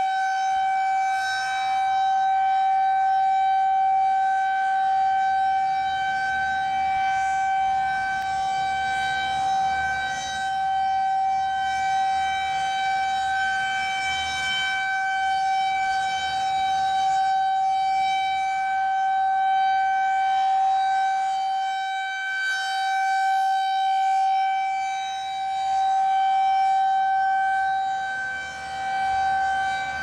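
Federal Signal 2001-SRN rotating outdoor warning siren sounding a steady, unchanging tone, loud throughout, swelling and fading a little as the horn turns.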